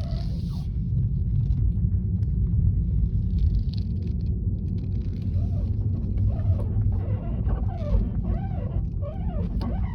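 Tesla Model 3 under steady road rumble, with a squeak that starts about halfway in, bending up and down in pitch and repeating about twice a second.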